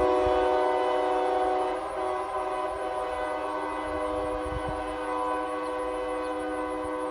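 Nathan Airchime K3HA three-chime locomotive air horn, an 1980s widefont, sounding one long held chord that slowly gets quieter.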